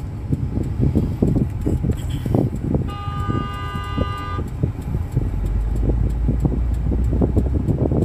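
Car horn from the vehicle behind, one steady blast about three seconds in lasting roughly a second and a half, over the continuous low rumble of the car moving off.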